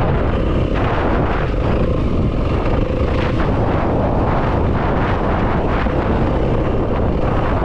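Yamaha WR250F dirt bike's single-cylinder four-stroke engine running steadily while riding, buried in heavy wind rumble on the microphone.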